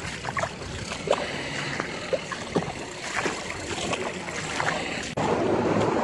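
Feet wading through shallow floodwater, with irregular sloshing splashes of each step. About five seconds in, a steadier, louder rush of wind on the microphone takes over.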